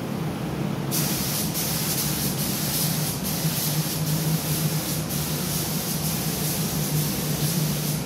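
Paint spray gun hissing as car interior parts are sprayed, starting about a second in and going on with several brief breaks where the trigger is let off. A steady low hum runs underneath.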